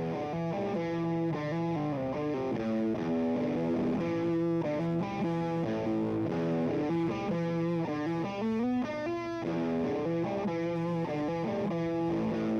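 Electric guitar played through a Madbean Snarkdoodle overdrive pedal, a clone of the Way Huge Red Llama: a continuous run of picked notes and chords with distortion, the pedal passing signal and working.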